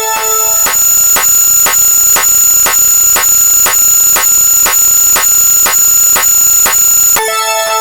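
Synthesized electronic sound effects, alarm-like: a steady high-pitched tone with a sharp click about three times a second. A lower set of tones sounds at the start and comes back near the end.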